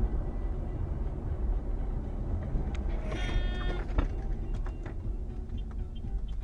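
Steady road and engine rumble of a vehicle driving on a highway, heard from inside the cabin. About three seconds in, a brief high-pitched tone lasts just under a second, followed by a single sharp knock as the vehicle is jolted.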